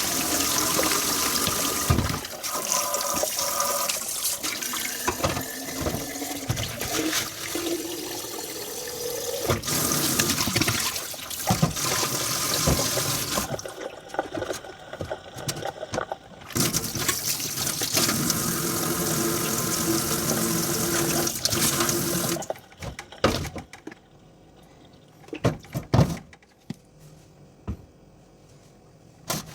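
Kitchen tap running into a sink while dishes are washed under it. The water stops for a few seconds around the middle and again about three-quarters of the way in, after which scattered clinks and knocks of dishware are heard.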